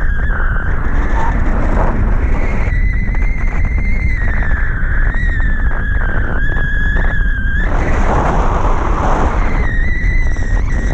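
Airflow of tandem paragliding flight buffeting the microphone as a loud, steady rumble. A high whistling tone wavers slightly in pitch and drops out twice, for about two seconds each time.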